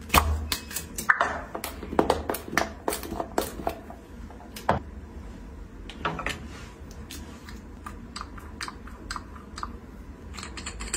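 Sharp clicks and taps of plastic and glass hair-care bottles being handled, their caps and pumps worked: a leave-in hair mask spray bottle, then a hair oil bottle. The clicks come thick and fast for the first few seconds, then sparser.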